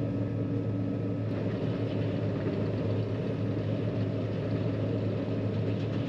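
Combine harvester running at a steady drone, a constant low engine hum under even machine noise.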